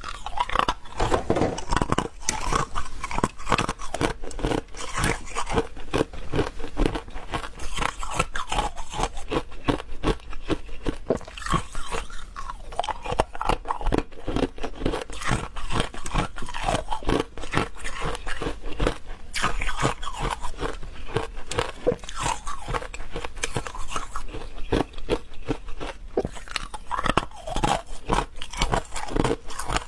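Hard frozen ice cubes being bitten and chewed close to the microphone: a dense, irregular run of sharp crunches and cracking throughout.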